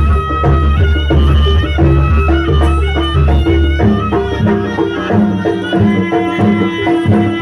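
East Javanese jaranan ensemble music: a shrill reed shawm (slompret) plays the melody over drums and gamelan-style gong percussion. The heavy low thuds thin out about four seconds in, leaving repeated pitched metallic notes under the melody.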